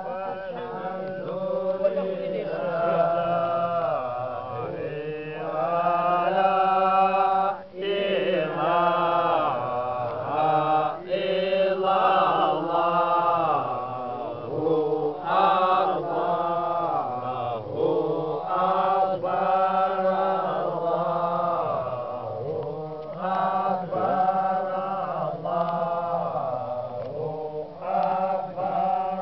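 A group of men chanting together in unison: a slow, melodic devotional chant of long wavering notes, with short breaks for breath between phrases.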